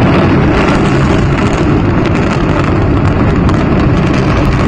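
Controlled demolition of a high-rise tower block: a loud, continuous rumble with dense crackling as the charges fire and the tower comes down.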